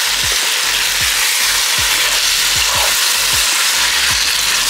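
Finished gongura chicken curry sizzling and bubbling in the pan, a steady hiss with low pops.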